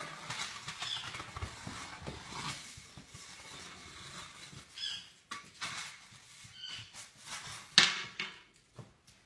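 Broom scraping and knocking on a wooden floor as a raccoon grapples with it, with a few short high squeaks around the middle and a sharp knock about eight seconds in.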